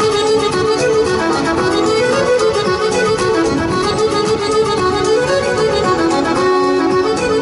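Lively fiddle-led Irish dance tune with a steady, quick beat.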